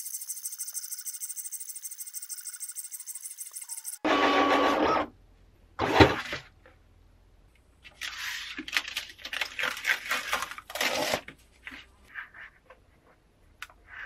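Silhouette Cameo vinyl and paper cutter whirring in a fast, rhythmic high whine as it cuts a test sheet of printed stickers. About four seconds in there is a brief louder whir, then a sharp knock, and then paper rustling as the sticker sheet is peeled up off the sticky cutting mat.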